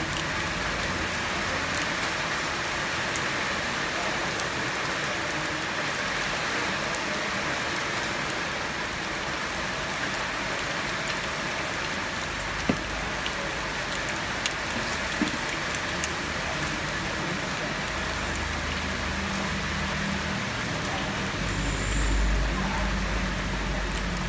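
Steady heavy rain, with a few sharp clicks a little past the middle and a low rumble building near the end.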